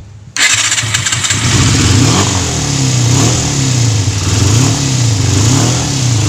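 Yamaha Zeal 250's inline four-cylinder engine catching suddenly about half a second in, then revved up and down repeatedly, its pitch rising and falling about once a second. The bike has a hard-start, no-idle problem.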